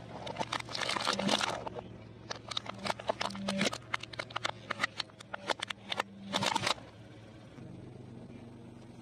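Plastic toy water gun cracking and crunching under a car tyre: a long run of sharp snaps and crackles for about seven seconds, with the car's engine humming steadily underneath.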